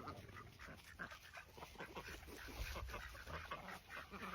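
A turkey being burped by hand, giving soft, quiet animal sounds amid faint rustling, with a low rumble about two and a half seconds in.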